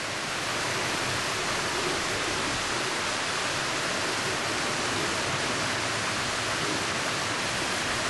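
A steady, even rushing hiss with no distinct events, like running water.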